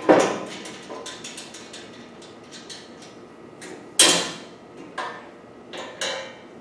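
Ratchet wrench clicking quickly, about six or seven clicks a second, as a bolt on the chipper shredder's sheet-steel safety cover is backed out, then a few sharp metal knocks as the cover is handled, the loudest about four seconds in.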